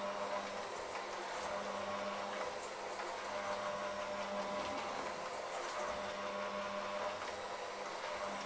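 Electric hand mixer running steadily, its beaters working a thick, grainy mixture in a stainless steel bowl.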